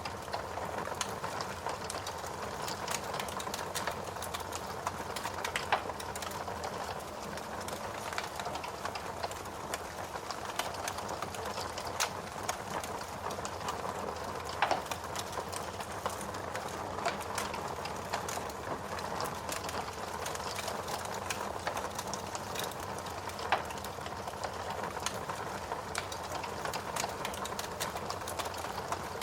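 Wood fire crackling steadily with dense small clicks, and a few sharper pops now and then.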